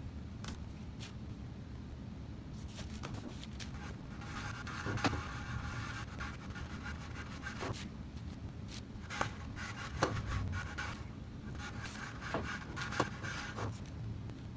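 Sandpaper sheets being handled, rubbed and scraped against a flat steel table top, with scattered taps and clicks over a steady low shop hum. The rubbing comes in two stretches, one about four seconds in and one near the end.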